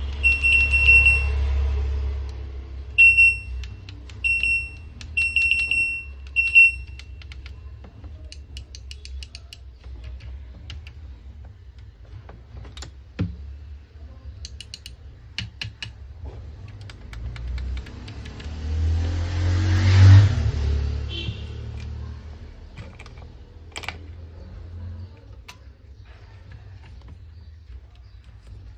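Electronic beeps from an LG front-load washing machine's control board: one long beep, then several short ones over the first seven seconds, as its buttons are pressed. Scattered clicks follow, with a rushing noise that swells and fades about two-thirds of the way through, over a low hum.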